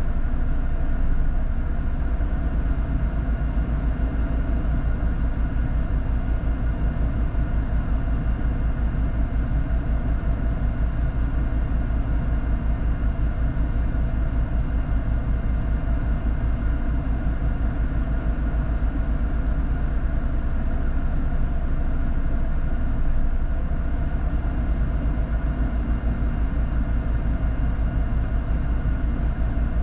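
Four-wheel-drive vehicle on the move off-road, its engine running steadily under a heavy low rumble, with no change in speed.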